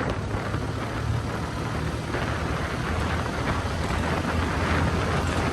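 A vehicle's engine running steadily with a low hum, with wind buffeting the microphone as it drives.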